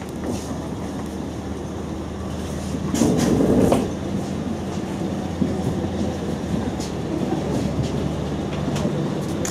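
Walking along an airport jet bridge: footsteps and rattling on the bridge floor, over a steady low hum. The rattling swells into a louder rumble for about a second, around three seconds in.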